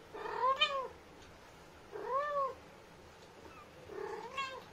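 Domestic cat meowing three times, about two seconds apart, each meow rising and then falling in pitch.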